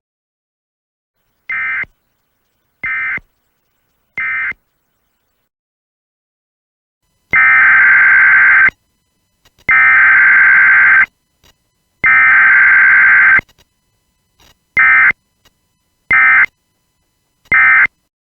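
Electronic buzzer tone beeping out SOS in Morse code: three short beeps, three long ones, then three short again. The long beeps are louder than the short ones.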